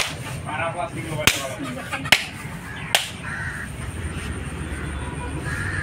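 Four sharp knocks, roughly a second apart, over a murmur of voices; near the end a low rumble sets in.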